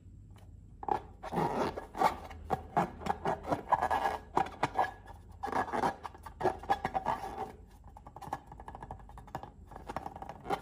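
Slime being worked by hand, with dense sticky crackling and scraping full of small clicks. It starts about a second in and eases off briefly near the eight-second mark.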